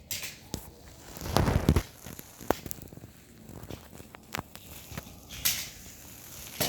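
Clicks and clatter of die-cast toy cars being handled and rolling along a plastic Hot Wheels track, with a louder rattling rush about a second and a half in.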